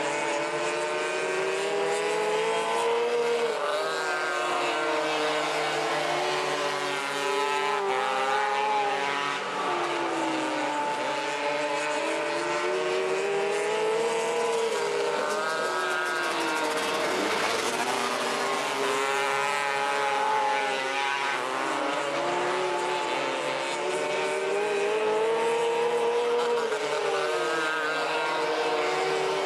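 Several 270cc microsprint race cars' single-cylinder engines running flat out together. Their pitch rises and falls over and over, every few seconds, as the cars accelerate down the straights and lift into the turns.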